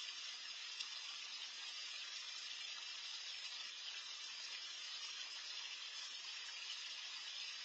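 Steady hiss of water churning in a small garden pond, even and unbroken.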